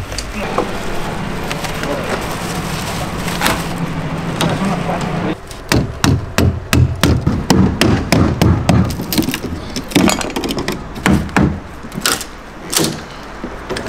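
Plywood shipping crate being pried open by hand: a tool knocking and levering at the crate's metal edge clips makes an irregular run of sharp wooden knocks and clacks, starting about five seconds in. Before that there is a steady low hum with light rustling.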